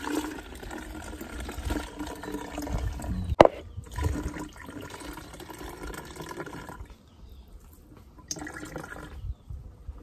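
Coconut milk trickling and dribbling through a mesh sieve into a plastic jug as wet grated coconut is squeezed by hand. A single sharp knock about a third of the way in; the trickling thins out over the last few seconds, with one more short spurt.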